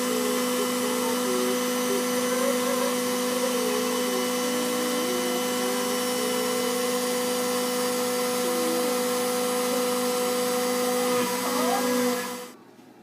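CNC cutting machine running with a steady whirring hum over a hiss, while fainter tones wander up and down in pitch. It cuts off suddenly near the end.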